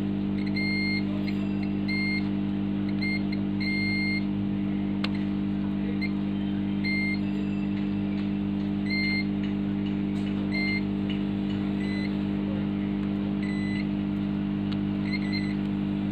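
Multimeter continuity buzzer beeping in short, irregular beeps as the probes are touched to points on a laptop motherboard. A beep marks a short to ground. A steady low hum runs underneath.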